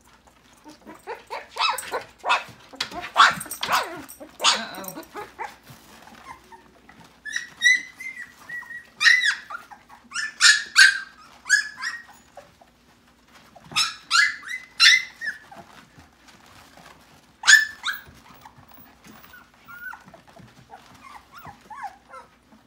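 Siberian Husky puppies yipping and squealing in short high-pitched bursts that come in clusters, tapering off into soft whimpers near the end.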